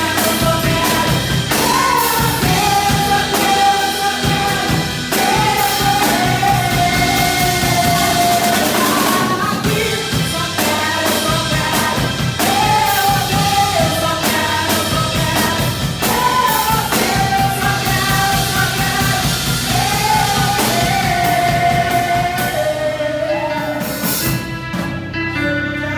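A church praise band playing a worship song, a singer holding long sung notes over drums and a full band.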